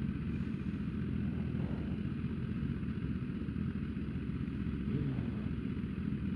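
BMW S1000RR superbike's inline-four engine idling steadily on the grid before the start, with other race bikes running around it. It holds an even pitch, with no revving.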